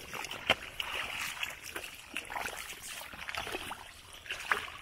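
Hands groping through shallow mud and water, feeling for fish by hand: irregular wet sloshing and splashing, with one sharper splash about half a second in.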